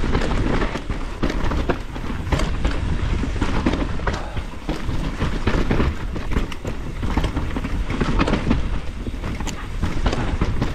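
Mountain bike ridden fast down rough, rooty singletrack: a steady rumble of tyres on the dirt with constant irregular clattering and knocking as the bike hits roots and rocks.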